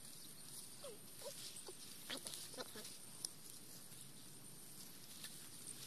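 Faint, short animal calls, a few scattered through the first half, over a steady high background hiss.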